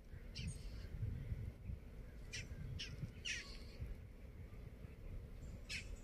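Birds calling outdoors: about five short calls, spaced unevenly, over a steady low background rumble.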